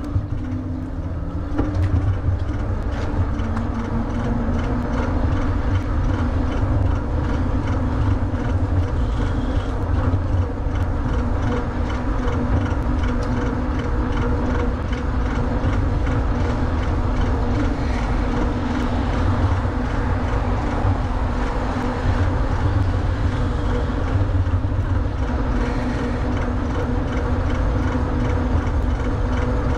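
WALLKE X3 Pro electric bike riding along a paved path: a steady low rumble of wind on the microphone and tyres rolling on pavement, with a steady electric hub-motor hum. The sound builds about a second and a half in as the bike picks up speed.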